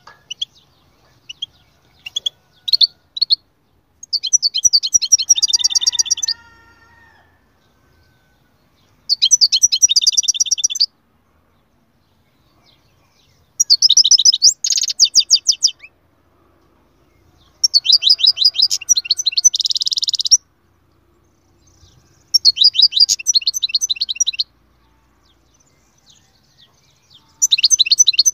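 European goldfinch singing: a few short calls, then repeated twittering song phrases of rapid high notes, each about two seconds long, with pauses of a few seconds between them.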